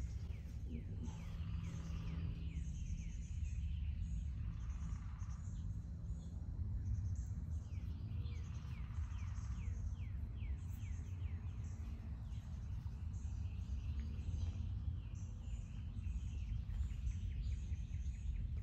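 Outdoor background of birds chirping, many short falling chirps throughout, over a steady low rumble.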